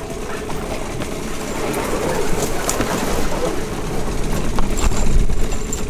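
Hidea 9.8 outboard motor running as it pushes an inflatable boat through grass and shallow water, a steady rumbling drone that grows louder about four seconds in. Weed is winding onto its propeller.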